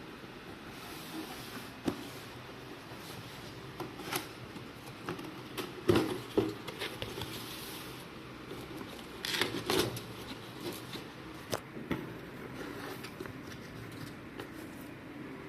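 Packaging being handled during an unboxing: scattered taps, knocks and short rustles over a steady hiss, with the loudest knock about six seconds in.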